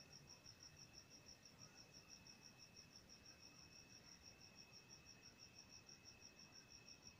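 Near silence with a faint high chirping pulse repeating about six times a second over a faint steady high tone.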